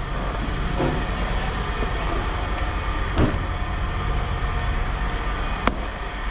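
Steady low mechanical rumble of heavy machinery running, with a couple of sharp metallic knocks, one about halfway through and one near the end.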